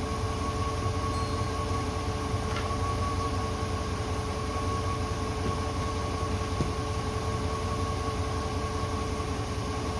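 An engine idling steadily: an even low rumble with two faint steady tones above it.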